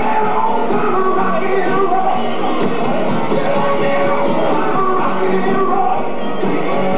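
Rock-and-roll dance song with a singer, playing loudly and steadily.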